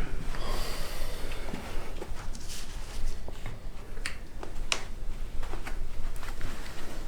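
A person breathing hard through the nose in snorts and sniffs, with a few sharp clicks.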